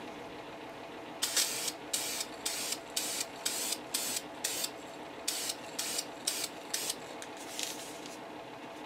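Aerosol spray can of orange paint hissing in a quick run of short bursts, about two a second for some six seconds, misting thin coats onto a test card.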